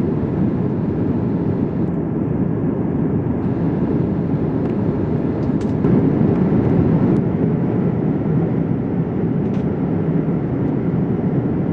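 Steady low rumble of air and engine noise heard inside a Boeing 787-8 airliner cabin in flight, with a few faint clicks.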